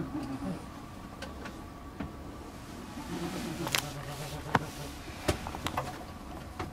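Scattered sharp clicks and knocks from people shifting and handling things inside a small hide, over a steady low background rumble.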